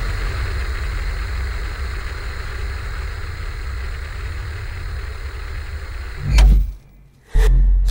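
Horror film sound design: a steady low rumbling drone under the hiss of television static, swelling into a heavy low hit about six seconds in, then dropping out abruptly for about half a second before coming back.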